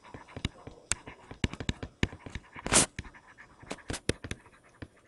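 Stylus tapping and scratching on a writing tablet during handwriting: a string of small sharp clicks, with one louder short breath-like rush a little under three seconds in.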